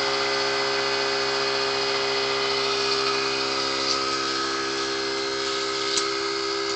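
Small electric air compressor running steadily with an even motor hum, pumping up the T-shirt air cannon's tank before firing. A couple of faint ticks sound about four and six seconds in.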